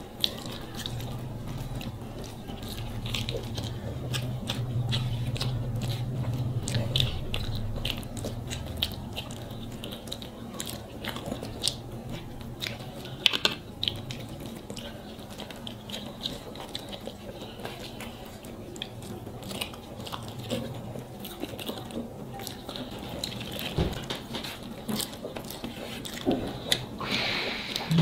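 Close-up eating sounds: fingers mixing rice and curry on plates, with chewing and many small wet clicks and smacks. A low hum runs for a few seconds near the start.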